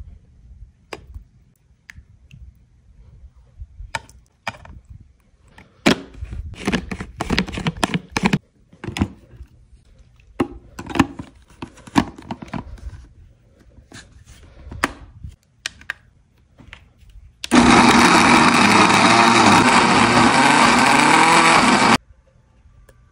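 Clinks and knocks of ingredients being dropped into a plastic blender jar and the jar being handled, then a personal blender's motor running for about four and a half seconds, chopping red peppers and onion, and cutting off suddenly near the end.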